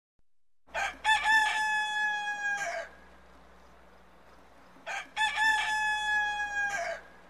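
A rooster crowing twice, about four seconds apart. Each crow is a few short notes followed by one long held note that drops at the end.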